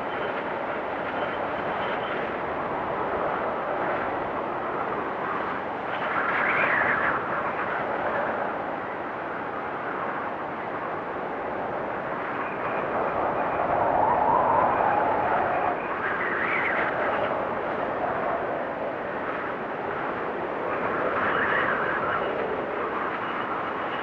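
Strong blizzard wind blowing, a steady rush that swells in gusts about four times, with a faint high whistle now and then.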